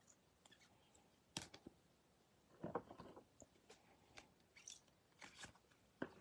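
Faint, scattered clicks and clacks of rigid plastic trading-card holders knocking together as a stack is flipped through by hand.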